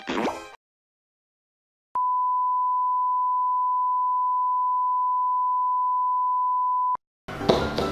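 A single pure electronic beep held at one steady pitch for about five seconds, starting and stopping abruptly with a click: the classic censor-bleep sound effect. Music from the neighbouring clips ends just after the start and begins again near the end.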